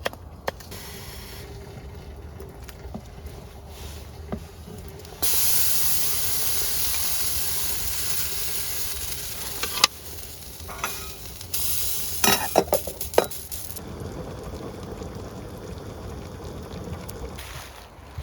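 Food sizzling in a hot pot on a wood stove: a loud sizzle starts suddenly about five seconds in and slowly eases, then flares again briefly after twelve seconds, with several sharp clicks and knocks of a utensil against the pot.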